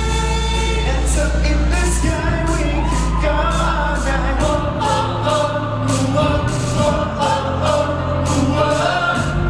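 Pop song playing loudly, with sung vocals over a steady drum beat and bass.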